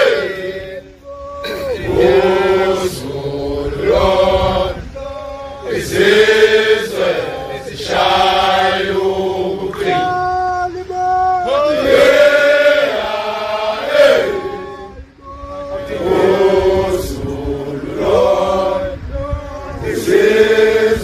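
Men of a Zulu regiment chanting together in long, drawn-out phrases with sliding pitch, with brief breaks between phrases.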